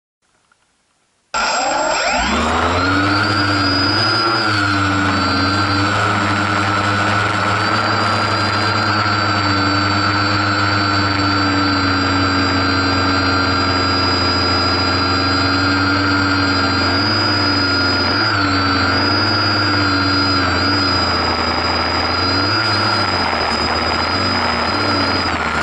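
Quadcopter's Emax brushless motors and propellers whining steadily in flight, close to the microphone as if from a camera on the frame. The sound starts suddenly after about a second of silence, and its pitch wavers slightly a few times as the throttle changes.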